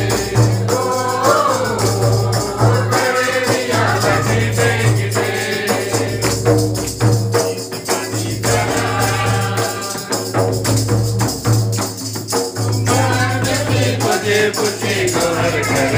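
A group of men and women singing a Christmas carol together, with a barrel drum beaten by hand in a steady rhythm.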